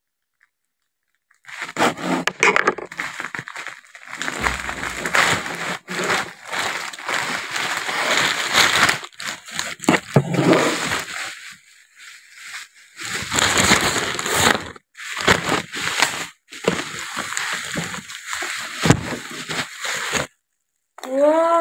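Plastic parcel packaging, a poly mailer bag and the wrapping inside it, being cut, torn and unwrapped by hand: irregular bursts of crinkling, rustling and tearing with short pauses.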